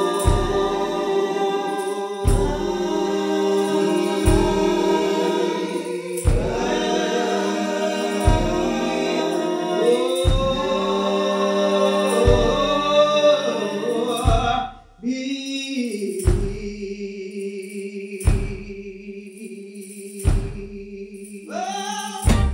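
Gospel choir singing a slow lined hymn in long, drawn-out notes over a deep thump about every two seconds. About two-thirds of the way through, the choir drops out; a single voice glides briefly, then a steady low hum carries on under the thumps.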